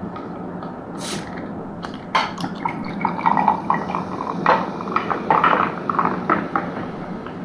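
Close-up mukbang eating sounds: wet, squishy clicks and smacks of boiled seafood being handled and eaten. There is one sharp click about a second in, and a dense run of wet sounds from about two seconds on.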